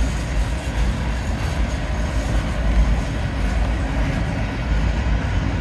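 CSX mixed manifest freight train's coil steel cars rolling past close by, a steady, deep rumble of steel wheels on the rails.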